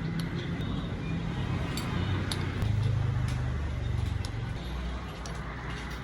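Low rumble of a passing motor vehicle that swells in the middle and fades, with light clinks of dishes and utensils at a noodle shop.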